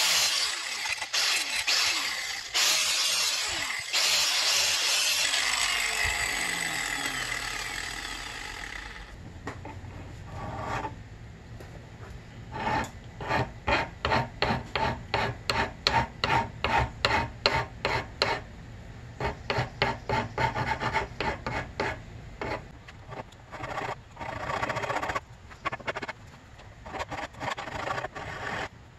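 Angle grinder with a flap disc grinding down the built-up weld on a Honda CRF250R kick start lever. It is then switched off and winds down in falling pitch. After that a hand file rasps across the metal lever in steady strokes, about two a second.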